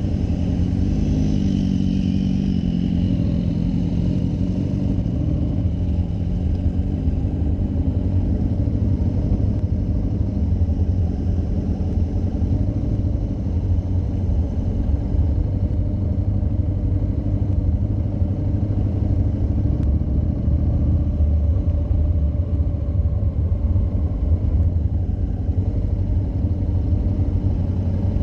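Motorcycle engine, likely the camera bike's Honda NC700 parallel twin, running steadily close to the microphone as a low, even rumble with no revving.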